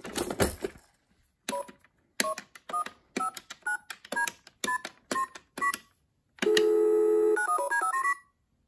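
A short clatter at the start, then the number keys of a Fisher-Price Laugh & Learn toy telephone being pressed one after another. Each press gives a short electronic dialing beep, about two a second, each a little higher than the last. Then a steady tone for about a second and a quick run of stepped beeps.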